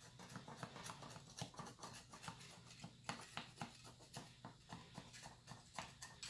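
Faint scraping and soft clicking of a metal offset spatula worked around the inside wall of a metal cake pan, several small clicks a second, as it loosens the baked cake's sides from the pan.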